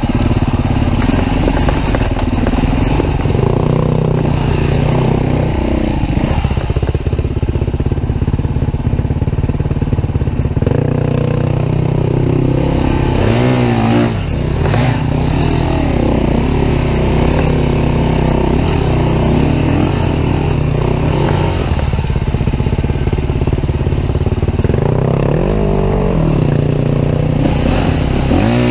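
2013 Husqvarna TE310R's single-cylinder four-stroke engine running on a rough forest trail, its revs rising and falling as the throttle is worked over roots and rocks. Several short sharp revs come around the middle and again near the end.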